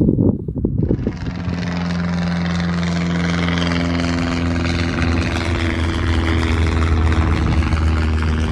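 Propeller aircraft engine running steadily with a low, even hum, starting about a second in. Wind buffets the microphone before it.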